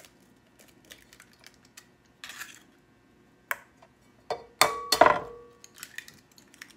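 Eggs being cracked against the rim of a mixing bowl: a few sharp taps and shell cracks. The loudest come about four and a half to five seconds in, with the bowl ringing briefly after them.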